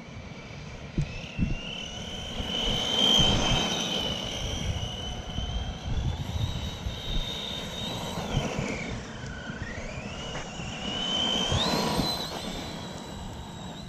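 Helion Avenge 10MT RC truck's electric motor whining under changing throttle while it powerslides on dirt: the pitch dips sharply about nine seconds in, then climbs higher again. Tyres hiss as they slide through the dirt, and scratching and knocks from the handheld camera run underneath.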